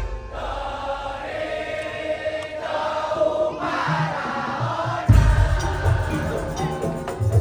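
Band music in rehearsal with a sung melodic line; a heavy bass part comes in about five seconds in.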